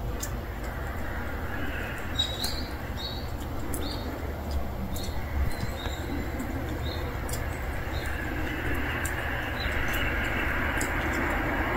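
Outdoor ambience: a steady low rumble with small birds chirping in short, repeated calls through the middle, and a broad rushing noise that grows louder near the end.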